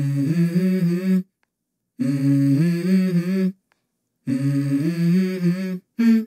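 Music: wordless hummed vocal phrases, three in a row with a short silence between each and a fourth starting near the end, each stepping up in pitch partway through.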